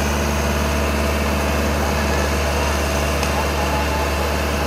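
Farm tractor's diesel engine running steadily with an even low drone while it pulls a trolley loaded with sugarcane.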